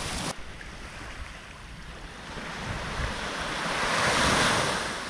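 Waves breaking on the beach, one wave swelling and washing in about three seconds in, then fading, with wind rumbling on the microphone.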